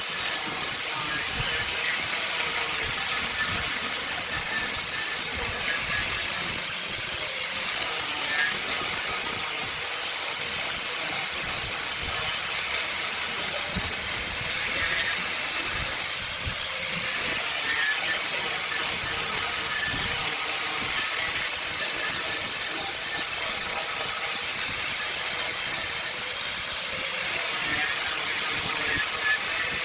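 Steady hiss of a spinning burl log on a wood lathe being worked by a tool pressed against the wood, with no break in it.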